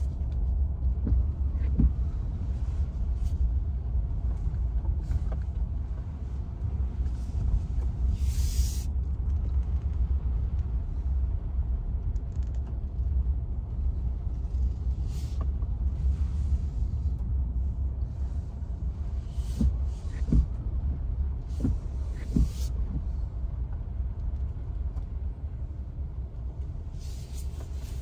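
Steady low road and wind rumble inside a Ford F-150 Lightning's cabin as it drives slowly over wet roads, with short hissing swishes now and then.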